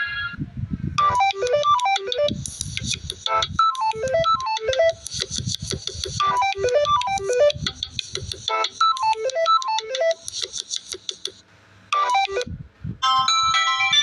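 Samsung Galaxy A04s ringtone playing: an electronic melody of quick falling note runs over a low beat, which stops about eleven and a half seconds in. After a brief burst, a different ringtone with a bright chiming melody starts near the end.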